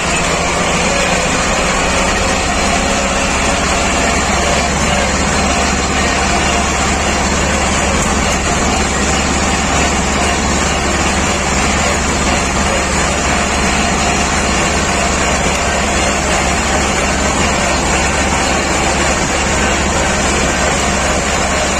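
T-25 Vladimirets tractor's two-cylinder air-cooled diesel running steadily at full throttle in sixth gear, with road and chassis rattle.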